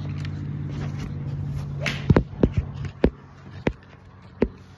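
A steady engine hum that fades out about three seconds in, then a run of sharp knocks and cracks, about six in under three seconds, irregularly spaced.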